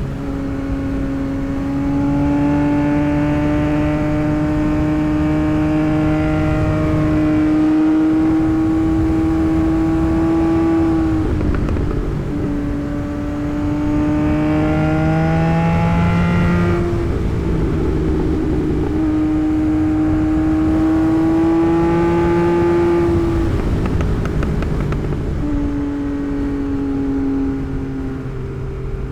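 Tuned 2024 Yamaha MT-09's inline-three engine pulling through the gears while riding: the engine note climbs gradually in each gear and drops back at each change, about four times.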